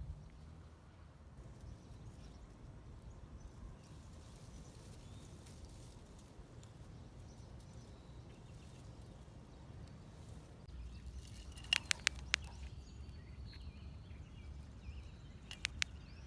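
Quiet outdoor background with a steady low rumble, broken by a quick cluster of sharp clicks about twelve seconds in and a few more near the end.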